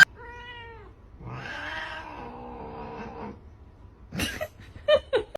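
Domestic cat meowing: a short meow, then a longer, drawn-out yowl, followed by a few sharp clicks near the end.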